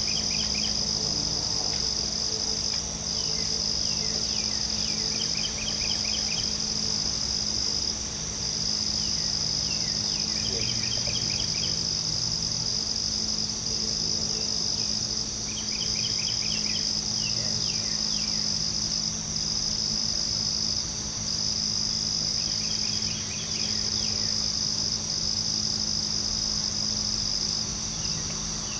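Steady night chorus of crickets, a high continuous trill with brief dips every second or two. Every few seconds there is a short, lower series of quick chirps, over a faint steady low hum.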